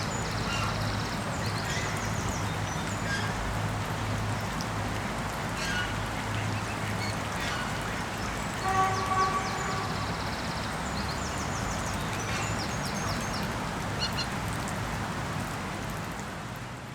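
Waterfowl calling over a steady low hum of background noise. Runs of quick high chirps come several times, and one short pitched call is heard a little past halfway.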